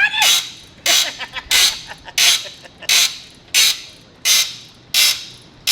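Steady rhythmic hammering, about one and a half blows a second, each blow ringing briefly. A short squeaky chirp sounds right at the start.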